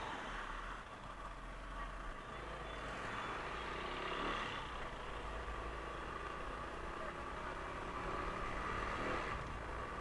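Motorcycle engine and road noise while riding: a steady running drone with a faint whine, swelling slightly a couple of times as it moves through traffic.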